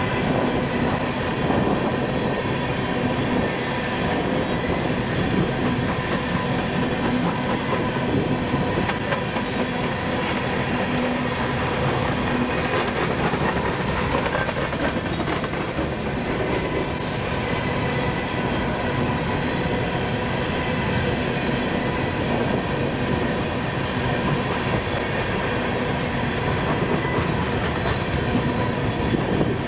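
Empty steel coal hopper cars of a freight train rolling past, their wheels clattering steadily over the rails with a steady tone running under the noise. Sharper clicks come in clusters about halfway through and near the end.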